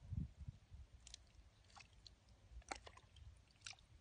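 Faint squelching and sloshing of a hand working through wet mud in shallow, muddy water, loudest just after the start, with a few soft clicks scattered through.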